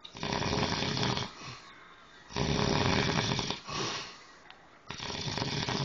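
A man snoring hard: three snores in a row, each about a second long, about two and a half seconds apart.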